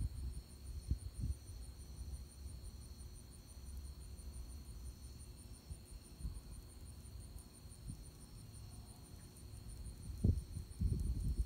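Night insects chirping in a steady, fast-pulsing high trill, over low rumbling noise that swells into several louder low thumps near the end.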